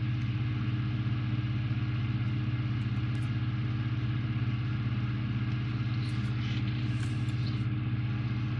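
A steady low mechanical hum with a few faint light clicks about three seconds in and again near the end.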